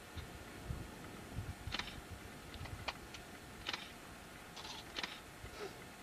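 Handling noise on a handheld video camera: irregular light clicks, about eight in a few seconds, with soft low bumps near the start.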